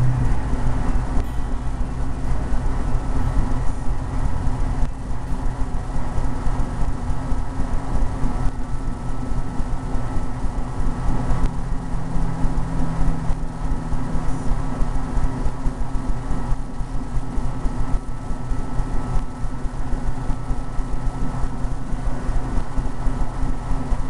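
A steady, unchanging low hum and rumble from a running machine, with several constant tones held throughout.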